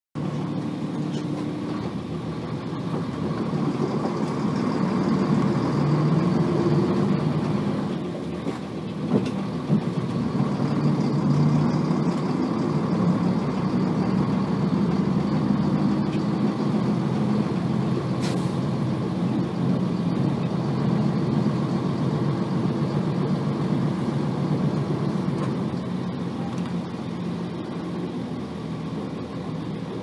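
Nissan Diesel FE6 six-cylinder diesel engine of a 1990 P-RM81G city bus running, heard from inside the cabin. There are a few sharp knocks about nine to ten seconds in.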